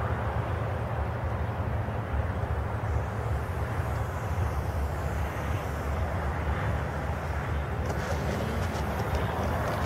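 Steady wind rumble on the microphone while an RC Cessna 182 model lands. A light crackle of its wheels rolling on the asphalt runway starts about eight seconds in.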